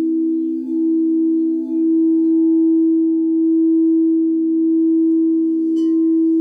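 Singing bowls ringing in a long sustained tone that wavers slowly in loudness. A light click comes near the end.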